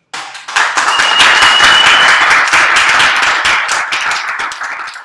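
Audience applauding, many people clapping at once, dying down near the end.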